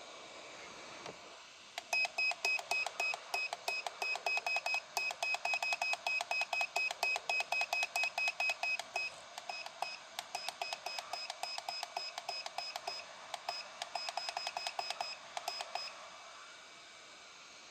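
Electronic beeper on a soldering and hot-air rework station, sounding a rapid string of short, identical beeps, about four a second, for around fourteen seconds with a few brief gaps. A steady hiss runs underneath.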